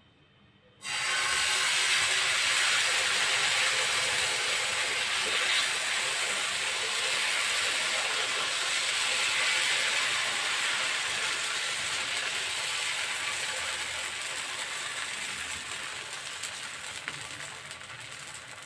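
Dosa batter sizzling on a hot ghee-greased tawa as it is poured and spread in circles with a metal cup. The sizzle starts suddenly about a second in and slowly dies down.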